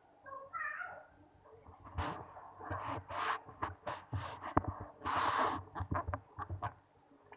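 A cat meows once, briefly and wavering, about half a second in, followed by scattered sharp clicks and taps and a longer rustle a little past the middle.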